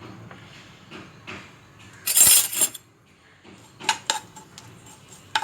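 Mustard seeds tipped into hot cooking oil in a pan, with a brief loud sizzle about two seconds in. This is followed by a few sharp metallic clinks of a spoon against the pan.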